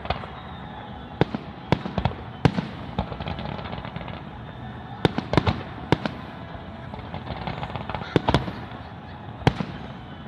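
Aerial fireworks shells bursting as sharp bangs, about a dozen scattered irregularly, several in quick pairs, over a steady background hiss.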